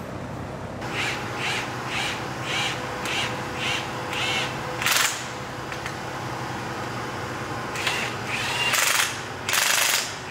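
Cordless impact wrench spinning bolts into a truck's leaf spring pack in short trigger pulls, its motor whining up and down about twice a second. Near the end it hammers in longer, louder bursts as the bolts tighten.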